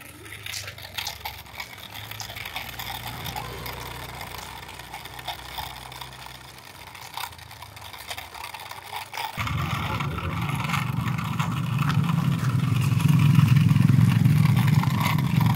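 A motor vehicle engine running steadily, faint at first, then suddenly much louder about two-thirds of the way in and swelling further near the end, with scattered light clicks over it.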